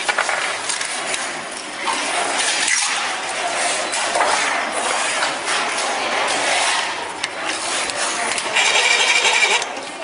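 Factory workshop noise: a steady machine hiss with many small clicks and clatters of plastic parts being handled. A brief buzzing sound comes in near the end.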